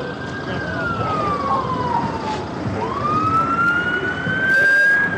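Emergency vehicle siren wailing, its pitch slowly rising and falling twice, over steady background noise.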